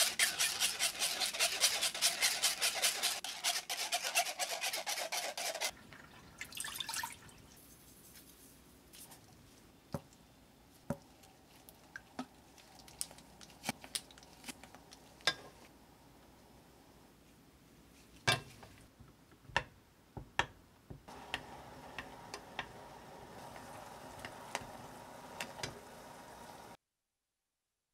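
Chopsticks scraping beaten egg through a stainless-steel mesh sieve into a glass bowl: fast rhythmic rasping that stops about six seconds in. Then a spoon stirs ketchup sauce in a small saucepan, with scattered clicks and taps against the pan, and a soft steady hiss from the heating sauce over the last few seconds before the sound cuts off.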